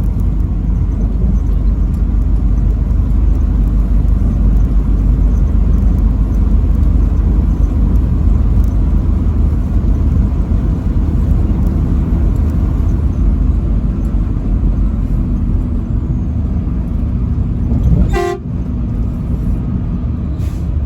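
Steady low rumble of a vehicle on the move, with road and wind noise. About eighteen seconds in there is one brief, sharp pitched blip.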